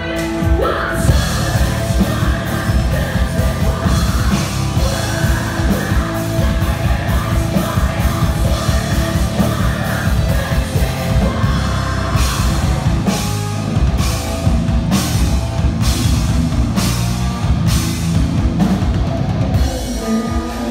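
Heavy metal band playing live through a festival PA: distorted electric guitars, bass, drum kit and a singer's voice. The full band comes in about a second in, and in the second half heavy accents land about once a second.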